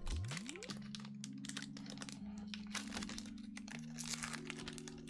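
Foil wrapper of a Pokémon card booster pack crinkling and tearing as it is opened, a dense run of small crackles.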